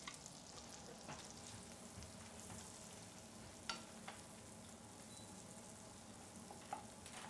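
Leeks softening in melted butter in a skillet with a faint, steady sizzle, and a few light clicks as a wooden spatula stirs them against the pan.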